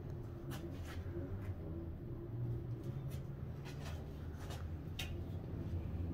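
Faint irregular knocks and scuffs of shoes on the rungs of a steel wall ladder as someone climbs, over a low steady rumble.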